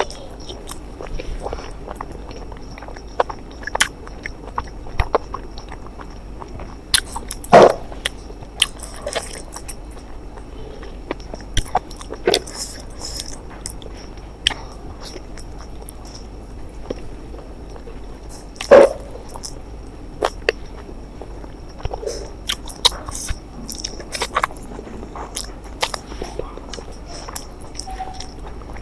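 Close-miked eating: a person chewing and biting food, with scattered small clicks and wet mouth noises and two much louder sudden sounds, about 8 and 19 seconds in. A faint steady high whine runs underneath.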